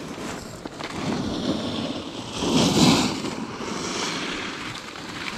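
Skis sliding and scraping over groomed snow on a downhill run: a steady rushing hiss that swells louder about two and a half seconds in.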